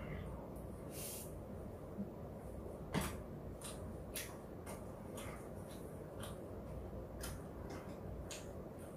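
Close-up mouth sounds of someone chewing a mouthful of gochujang bulgogi: short wet clicks and smacks about twice a second, with one sharper click about three seconds in.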